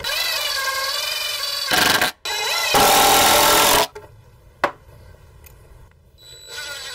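Cordless impact driver driving screws into wood: a wavering motor whine, then two loud bursts of rapid impact hammering, the second about a second long, as the screws seat. A single click follows.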